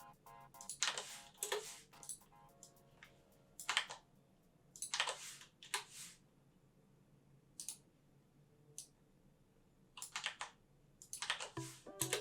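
Computer keyboard keystrokes and mouse clicks, irregular and spaced apart, with faint background music at the start and end.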